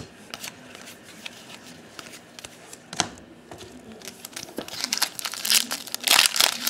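Soft clicks of cards being handled, then from about four and a half seconds in a foil trading-card pack wrapper crinkling loudly as it is torn open.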